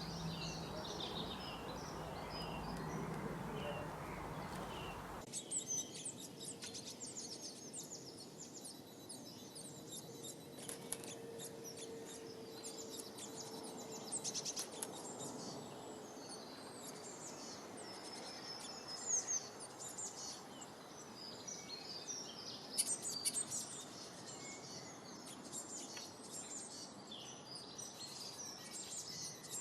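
Many small birds chirping and twittering in dense, quick, high-pitched calls. For about the first five seconds a steady low noisy hum sits under fainter chirps, then it cuts away abruptly and the chirping becomes clearer and busier.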